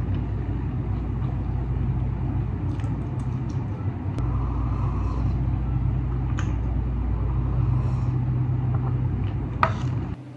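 Steady low electric machine hum from a running appliance, which stops abruptly near the end. A few light clicks and taps sound over it, the sharpest just before it stops.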